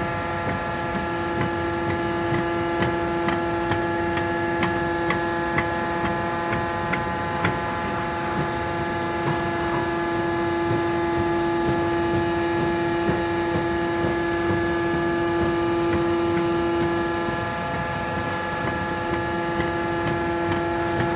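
Printing press impression cylinder turning under power: a steady machine hum made of several held tones, with light regular clicks about twice a second. The strongest hum tone drops out for about a second late on, then returns.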